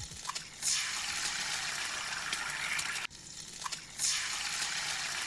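Food frying in hot oil in a pan: a steady, even hissing sizzle that lasts about two and a half seconds, stops, and starts again about a second later.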